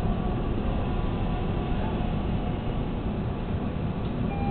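TTC subway train running on the track: a steady, dense running noise of the train in motion, with a faint thin whine that comes in near the end.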